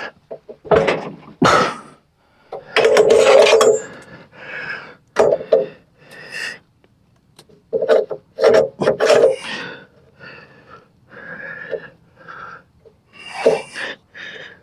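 A heavy walnut log scraping and bumping against the sawmill bed as it is pushed and pried by hand, in irregular bursts of effort separated by short pauses.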